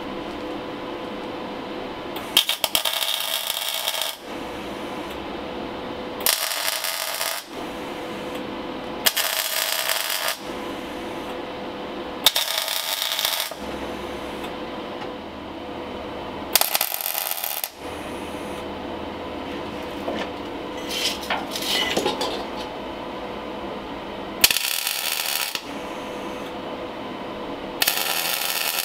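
MIG welder laying tack welds on steel mounts: about seven short bursts of crackling arc, each a second or two long and a few seconds apart, with a steady hum in between.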